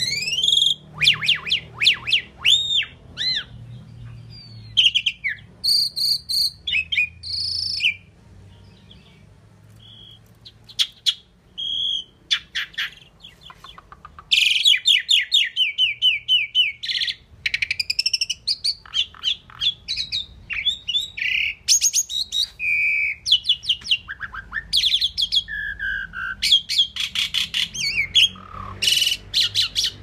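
Asian pied myna singing a varied run of whistles, sliding notes and fast rattling clicks, broken by short pauses.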